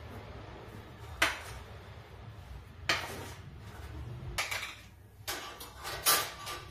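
Steel kitchen vessels and utensils clinking and clattering about five times, short sharp knocks with the loudest near the end, over a low steady hum.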